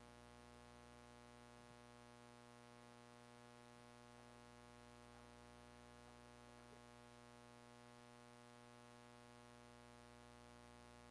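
Near silence: only a faint, steady electrical hum and hiss from the audio line.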